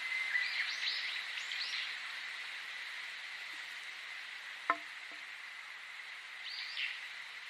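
Small birds chirping in quick arched notes, a cluster in the first two seconds and another about six and a half seconds in, over a steady high hiss and a constant high-pitched tone. A single sharp click a little past the middle.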